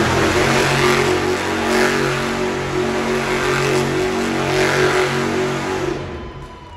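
Bigfoot monster truck's engine revving hard in repeated surges as the truck spins donuts, throwing up tyre smoke. The engine eases off about six seconds in.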